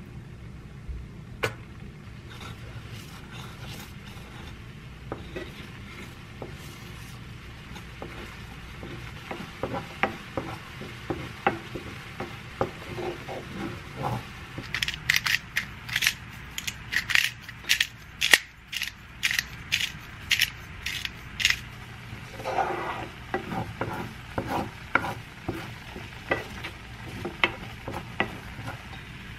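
Wooden spatula stirring and scraping a thick, bubbling cream sauce in a nonstick frying pan. The quick strokes get busier and louder from about halfway in. A low steady hum runs underneath.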